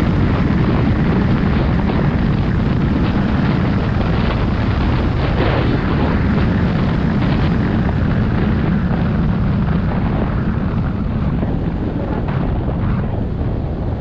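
Wind rushing and buffeting over the microphone of a skier going fast, about 45 km/h, with skis hissing and scraping on groomed snow. It eases a little in the last few seconds as the skier slows.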